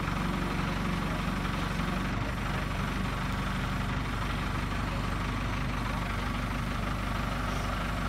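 Backhoe loader's diesel engine running steadily.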